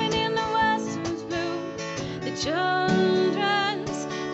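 Background music led by acoustic guitar, with a gliding melody line over steady chords.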